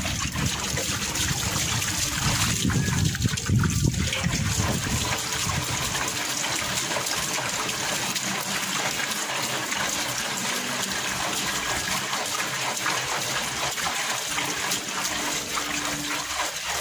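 Rinse water pouring out of a motorcycle fuel tank's filler opening and splashing onto a concrete floor as the tank is tipped to empty it. The pour is heaviest for the first few seconds, then settles into a lighter, steady stream.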